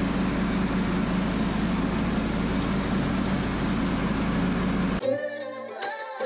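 Small John Deere tractor's engine running steadily. About five seconds in it cuts off abruptly and guitar music starts.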